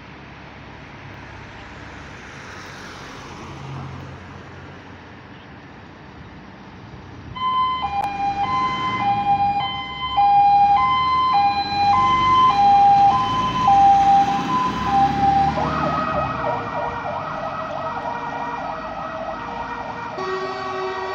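Fire engine's two-tone siren alternating high and low about once a second, starting after a few seconds of faint low rumble. About 15 seconds in it changes to a faster wavering pattern as the engine drives off. Near the end a second siren tone joins from the ladder truck following it out.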